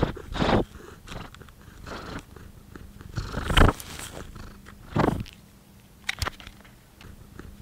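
Domestic cat purring close to the microphone, with a few short, louder noisy sounds about half a second, three and a half and five seconds in.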